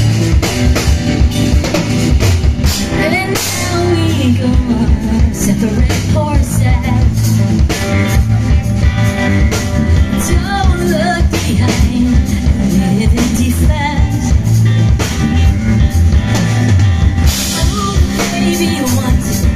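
A live rock band playing, with drum kit and guitars, and a woman's voice singing over it.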